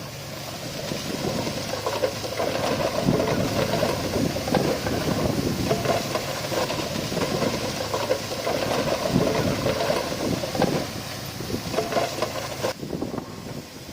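Diesel engine of heavy earthmoving machinery working under load, with irregular clanks and knocks throughout; the sound changes abruptly near the end.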